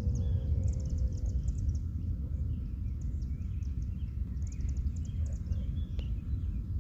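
Wind rumbling on the microphone, with birds chirping and high trills throughout. A faint, slowly falling tone fades out within the first second and a half: the tail of a Federal Signal 2001-130 tornado siren winding down.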